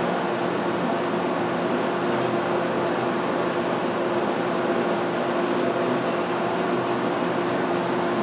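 Welding machine running with a steady, even buzzing hum over a hiss, with no breaks or changes.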